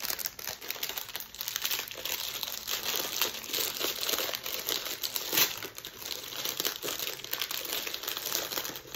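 A small plastic packet of croutons crinkling and crackling as it is worked open by hand, with one louder crackle about five seconds in.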